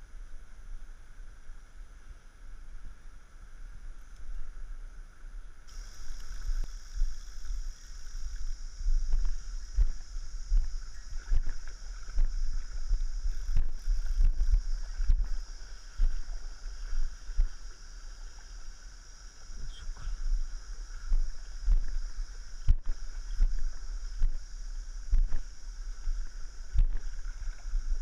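Water splashing and sloshing in a shallow stream as a person wades through it, with irregular splashes that grow louder and more frequent after several seconds. Low rumble from wind or handling on a body-worn camera runs underneath.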